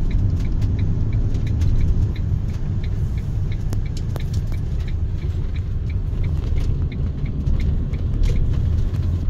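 Motorhome driving on the road, heard from inside the cab: a steady low rumble of engine and tyres, with a light regular ticking about three times a second and a few small rattling clicks.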